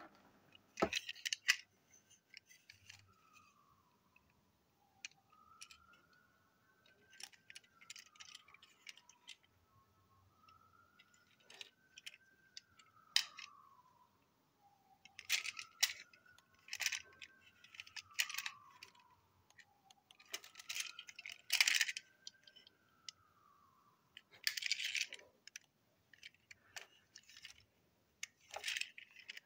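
Small model train wagons handled in the hand: irregular light clicks and rattles of their parts knocking together. A faint tone rises and falls in slow arcs about five times behind them.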